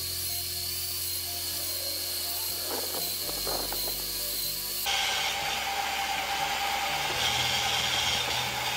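Angle grinder driving a homemade tiller: a steady motor whine with the tines clattering through soil, louder from about five seconds in, over background music.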